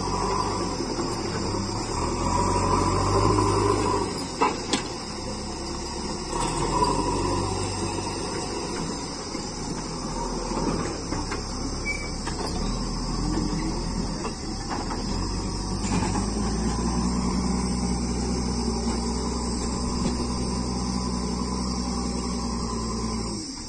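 JCB 3DX backhoe loader's diesel engine running as the machine works soil, with a few sharp metal clunks between about four and seven seconds in. The engine note rises about two-thirds of the way through. A steady high-pitched hiss runs over it.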